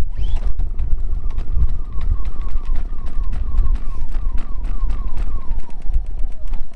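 GenMax GM3300i inverter generator's 145cc four-stroke engine running rough on choke just after its first start, firing in rapid, uneven pops with a repeating falling chirp. It smokes as it burns off the oil put down the spark plug hole to prime it.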